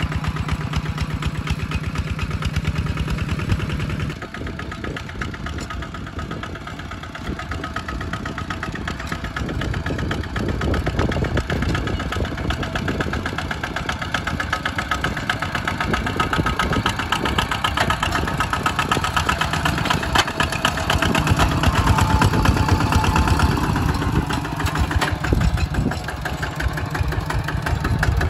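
Single-cylinder diesel engine of a two-wheel walking tractor chugging steadily under load while it pulls a plough through the soil. The sound drops in level about four seconds in, then builds back up.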